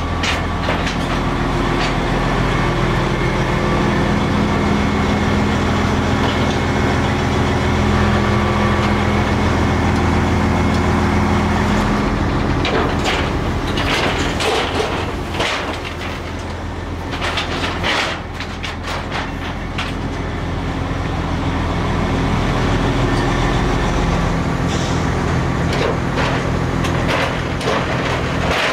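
An engine running steadily beside a car hauler trailer, with sharp metal clanks and rattles from the trailer's steel decks and ramps, mostly in the middle stretch as cars are moved on it.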